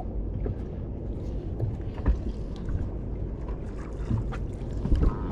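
Low, uneven rumble of wind on the microphone and water against the hull of a small fishing boat at sea, with a couple of short knocks.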